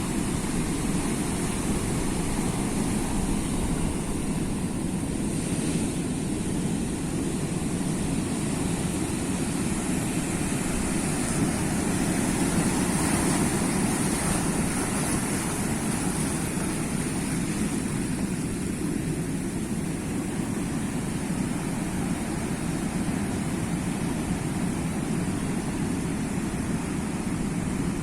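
Sea waves washing on the shore, a steady rushing surf with a deep rumble, swelling slightly around the middle.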